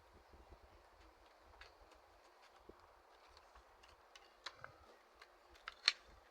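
Scattered small clicks and taps from handling plastic razor-cartridge packaging, busier toward the end, with one sharper click near the end.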